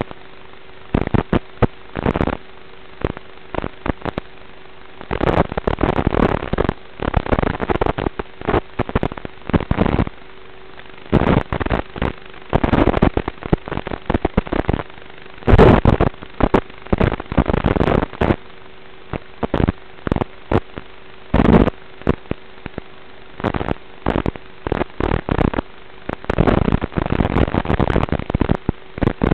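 Loud crackling static that comes and goes in irregular bursts every second or so over a faint steady hum: noise on the audio channel of an analog FPV video receiver.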